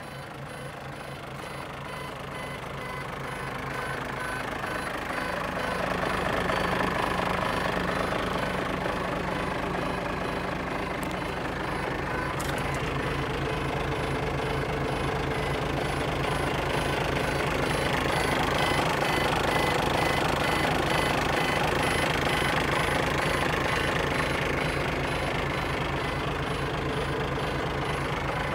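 Mitsubishi Fighter truck's 6D14 straight-six diesel engine idling steadily with an even knock. It grows louder about five seconds in and then stays level.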